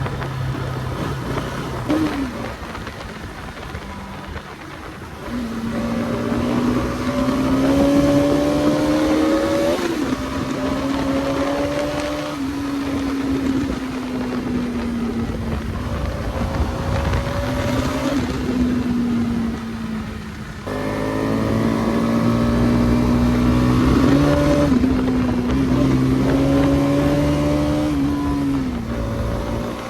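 Bajaj Pulsar NS200's single-cylinder engine running while riding, its note rising and falling with the throttle. The note briefly drops about two-thirds of the way through, then picks up again.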